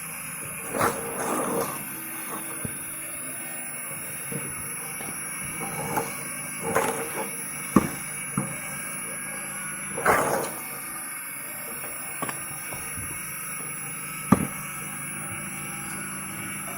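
Firewood being split: about seven sharp wooden knocks and cracks, a few seconds apart, some followed by a brief clatter of split pieces falling, over a steady low background hum.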